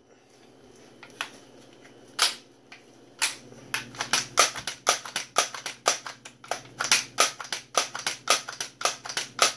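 Multi-pump pneumatic BB gun being pumped: sharp clacks of the pump lever, a couple at first, then a rapid even run of about three a second from about three seconds in, building air pressure for a shot.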